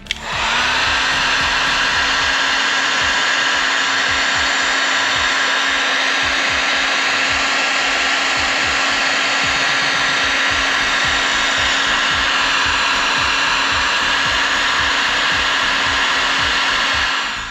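Electric heat gun running steadily, shrinking heat-shrink tubing over a freshly crimped ring terminal on heavy-gauge battery cable. Its fan whine rises briefly as it spins up at the start, then holds steady until it is switched off at the end.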